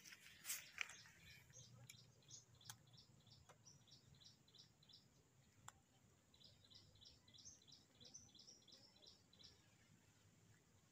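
A small bird calling in rapid series of short, high chirps, about four a second, in two long runs with a pause between them. A few soft clicks come in the first second.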